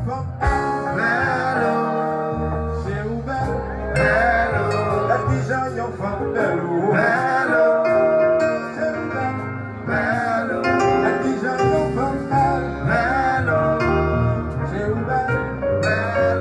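Haitian kompa band playing live: a man singing into a microphone over keyboards and a steady bass line.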